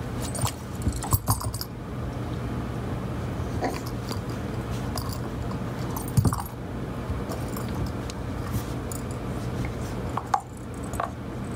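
Puppy moving about in a plastic tote lined with towels: scattered clicks and knocks, the loudest about six seconds in, over a steady low hum.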